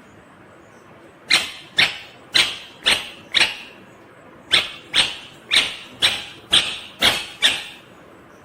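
Indian ringneck (rose-ringed) parakeet giving a run of short, sharp calls about two a second: five in a row, a brief pause, then seven more.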